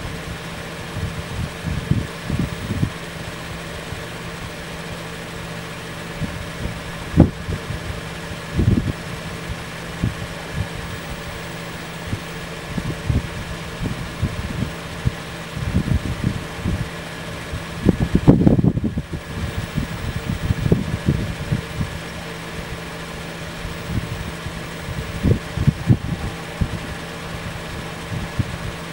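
A vehicle engine idles with a steady hum. Irregular gusts of wind buffet the microphone with low rumbles, the strongest about two-thirds of the way through.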